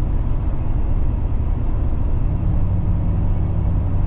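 Steady road noise of a truck cruising on the highway, heard inside the cab: a low engine and tyre drone, with a steady low hum that firms up about two seconds in.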